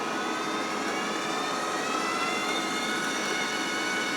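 MIG welder's wire feed motor running steadily, pushing 0.8 mm wire through the gun cable before any has reached the tip. It is a steady whine of several tones, some edging slowly upward.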